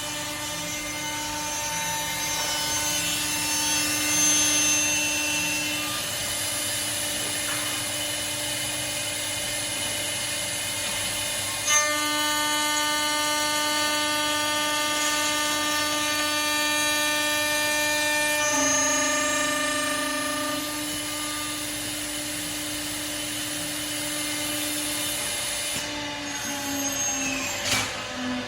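CNC router spindle running and cutting aluminium: a steady high whine that shifts pitch about twelve seconds in and again about nineteen seconds in, with a sharp click at the first shift. Near the end the whine slides down in pitch.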